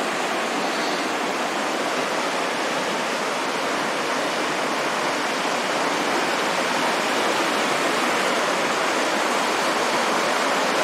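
River in flood rushing steadily, its fast current churning and breaking white against a concrete bridge pier. It is a continuous rush of water that grows slightly louder in the second half.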